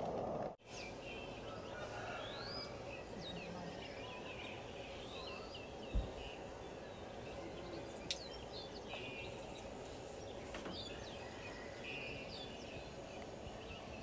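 Many small birds chirping and calling over a steady outdoor background hiss, with short rising and falling notes throughout. One low thump comes about six seconds in, and a sharp click a couple of seconds later.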